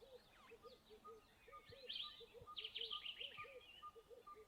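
Faint mixed bird calls: a repeated low arched note, often in pairs, under an even series of short high pips about two a second, with a brief burst of chattering chirps about two seconds in.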